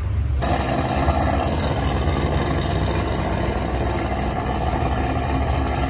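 A car engine running steadily at idle, a constant low rumble with a steady rushing noise over it.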